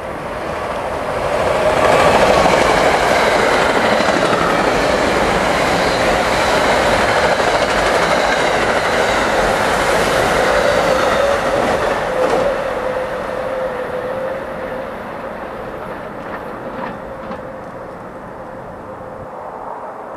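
Metro-North M2 electric multiple-unit train passing at speed: the noise of its wheels on the rails builds within about two seconds and holds while the cars go by. It then fades over the last several seconds as the train moves away, with a steady tone that drops slightly in pitch as the train passes.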